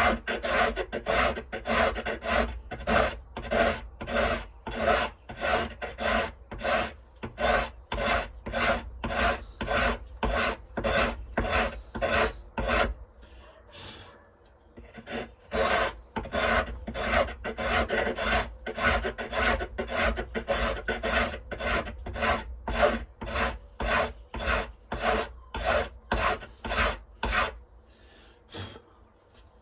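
Hand file worked in steady back-and-forth strokes, about two a second, evening up knife parts. It pauses briefly about halfway through, and the last few strokes are fainter.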